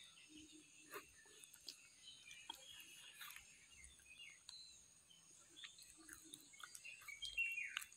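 Near silence: faint outdoor background with soft scattered clicks and brief faint chirps over a steady high hiss.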